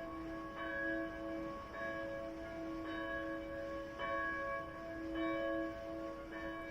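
Church bells ringing the noon bell, a new stroke about once a second, each one ringing on into the next.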